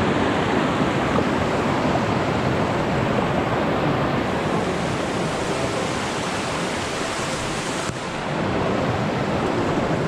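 Loud, steady rushing of fast-flowing water, with a brief break about eight seconds in.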